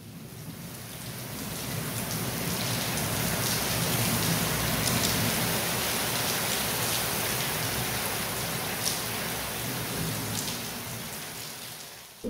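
Steady hiss like falling rain, with a few faint ticks. It fades in over the first couple of seconds and fades out near the end.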